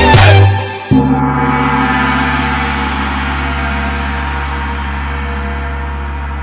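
The backing music stops, and about a second in a gong is struck once and rings on, with a deep, steady tone fading slowly.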